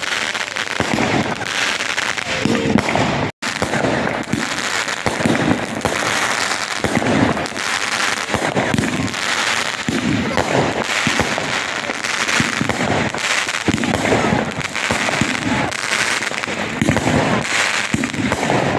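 Fireworks going off in a dense, continuous barrage of bangs and crackles, with voices underneath.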